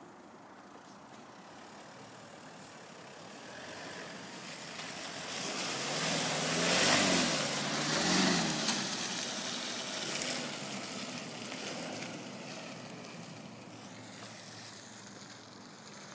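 Toyota Hilux pickup driving past through mud, its engine revving up and falling back twice while its tyres churn the mud. It is loudest as it passes, about seven seconds in, and fades as it drives off.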